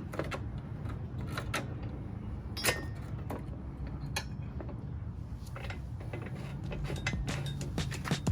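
Scattered metallic clinks and knocks of hand tools and motorcycle parts being handled during wheel removal, over a steady low hum; the clicks come more often near the end.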